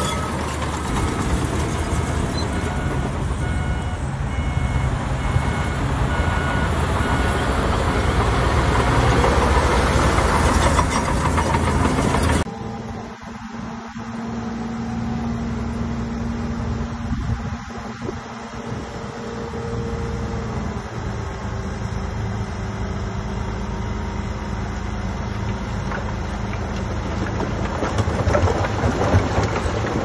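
Diesel engines of heavy earthmoving machinery running at work. The loud engine noise changes abruptly about twelve seconds in to a quieter, steadier engine hum, which grows louder again near the end.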